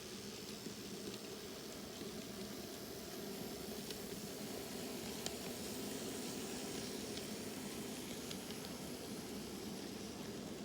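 N-scale model train (Kato SD70M locomotive pulling grain cars) running on track: a steady whirring hiss with a few faint clicks.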